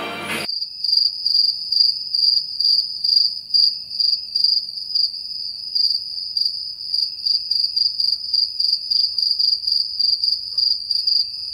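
Cricket-chirping sound effect: a steady high trill with rapid chirps about three times a second. It starts abruptly, replacing all other sound, as the comic "crickets" for a question left unanswered.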